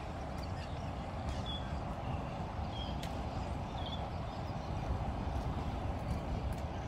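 Steady low rumbling noise, with a few short high chirps between about a second and a half and four seconds in.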